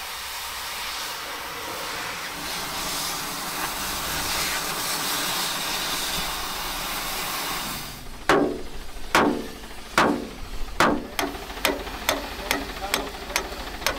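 Cutting torch hissing steadily as it burns through ship steel plate. About eight seconds in it gives way to a hammer striking rusty steel plate, a series of sharp ringing metal blows, about one to two a second and quickening near the end.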